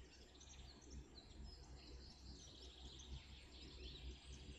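Near silence: room tone with a steady low hum and faint high chirps.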